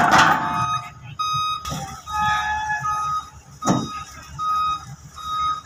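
Heavy-equipment back-up alarm beeping at a steady pace, about once every three-quarters of a second, over a diesel engine running. There is one short thump about two-thirds of the way in.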